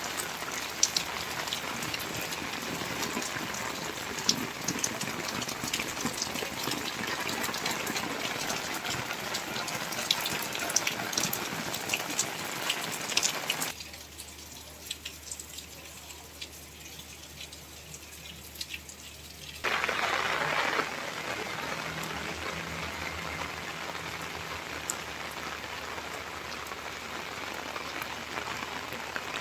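Steady rain falling, with scattered sharp drop hits. About halfway through it turns quieter for several seconds, then a short louder rush of water comes before the rain goes on as before.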